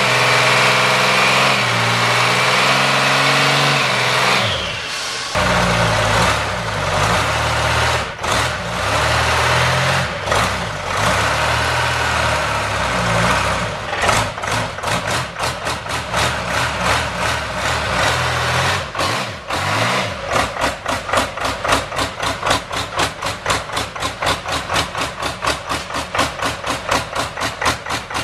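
Turbocharged Detroit Diesel two-stroke engine running on a test stand, with its engine speed rising and dropping several times. About twenty seconds in, the steady running gives way to a fast, even knocking pulse, several beats a second.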